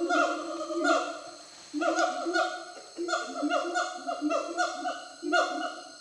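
Gibbons calling in the forest: a series of short, loud calls, each note falling slightly in pitch, coming in quick runs of two to four with brief breaks between.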